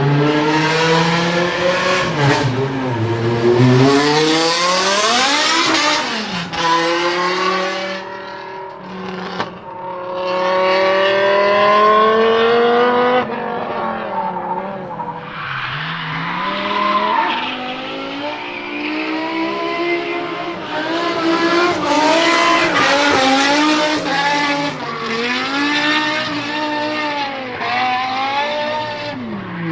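BMW M5 E60's S85 5.0-litre naturally aspirated V10 revving hard, its pitch climbing steeply and then dropping sharply several times, with shorter up-and-down swings in the later half and a falling pitch near the end.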